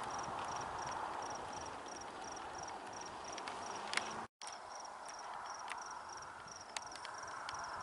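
A cricket chirping steadily, about three short high chirps a second, over a steady background hiss. The sound cuts out completely for a moment a little over four seconds in.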